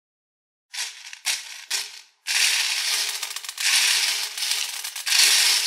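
Small plastic beads clattering as a plastic toy scoop stirs and scoops through a tray full of them: three short rattles, then a dense continuous rattle from about two seconds in.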